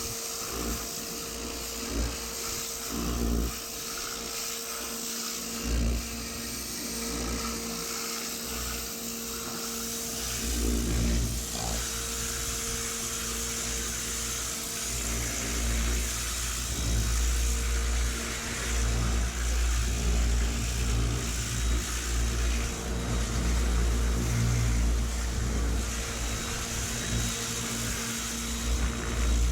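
Pressure washer running steadily, its motor holding a constant pitch under the hiss of the water spray, which gets louder about ten seconds in.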